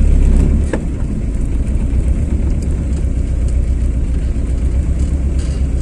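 Inside a moving car: steady low rumble of the engine and tyres on the road. It eases slightly about three-quarters of a second in, then runs on evenly.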